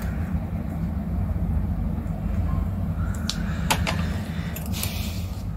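Washi tape being handled on paper: a strip laid along a line and pressed down, giving a brief rasp and a few light clicks, about three and a half to five seconds in, over a steady low hum.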